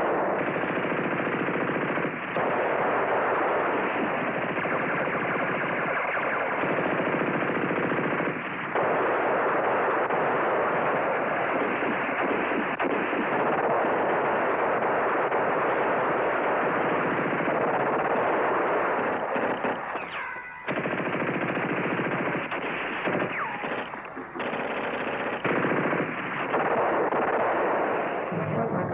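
Automatic gunfire: long, near-continuous machine-gun bursts with a few short breaks, as a battle sound effect on an old war-film soundtrack.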